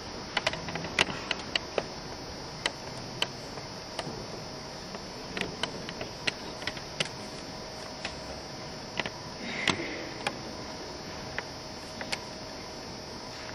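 A run of sharp, irregular clicks and taps, some coming in quick clusters, over a steady hiss with a faint electrical hum.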